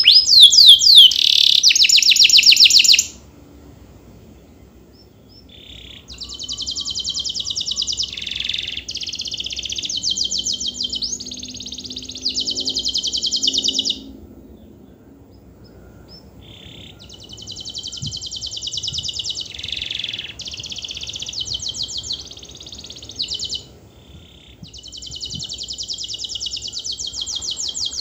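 Domestic canary singing long, fast trilled song phrases in several stretches broken by pauses of a few seconds, loudest in the first stretch.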